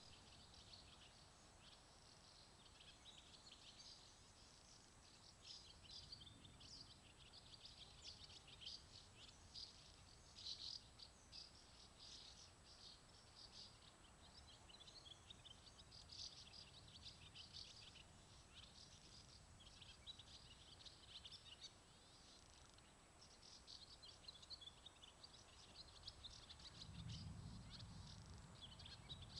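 Faint birdsong: many short, high chirps and calls overlapping throughout, over a low background hiss. A brief low rumble rises and fades near the end.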